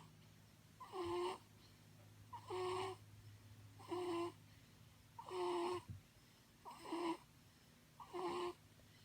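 Snoring: six short snores, each with a clear pitched tone and lasting about half a second, coming evenly about every second and a half.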